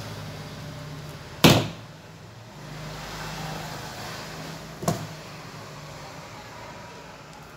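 Two sharp snaps of wire-stripping and crimping pliers on the fryer's wiring, a loud one about a second and a half in and a smaller one near five seconds, over a low steady hum.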